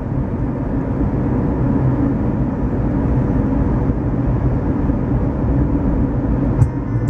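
Steady road and engine noise of a car driving at speed, a low, even rumble.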